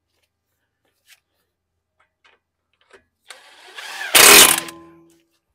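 DeWalt cordless impact wrench spinning a castle nut down onto a tie rod end stud. It is one burst of about two seconds, loudest just past its middle, then its motor winds down.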